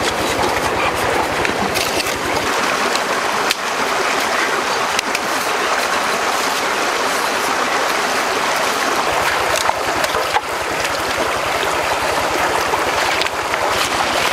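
Shallow forest stream flowing over rocks, a steady rush of water, with a few brief clicks over it.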